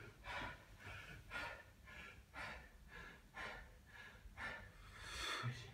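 Faint heavy panting, about two breaths a second, from a person catching their breath after a hard set of power cleans.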